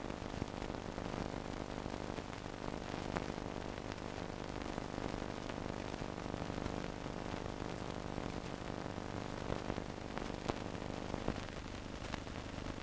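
Steady hiss and hum with scattered clicks and crackles, the surface noise of an old newsreel film soundtrack. The hum drops away about eleven seconds in.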